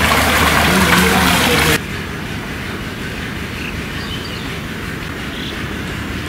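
Outdoor street noise: a louder rush with a steady low hum stops abruptly just under two seconds in, leaving a quieter, even background noise.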